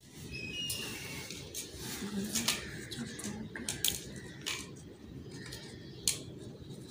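Scattered sharp clicks and taps, with a few short high chirps from a grey parrot about half a second in.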